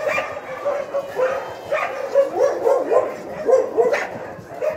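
A group of puppies making many short, overlapping calls while they wrestle together in play.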